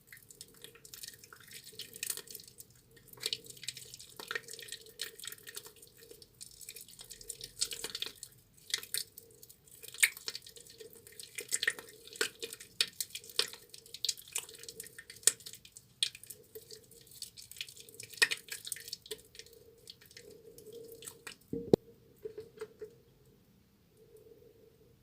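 A soaked, softened bar of tar soap being lathered by hand, with irregular wet clicks and crackles that thin out near the end. One sharper knock comes about three-quarters of the way through.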